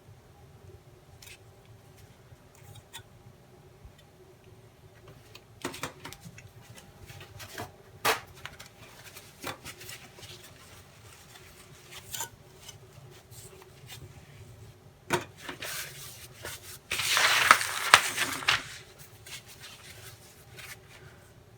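Model rocket parts being handled on a work surface: scattered light knocks and taps, then a louder scraping rub lasting about a second and a half near the end.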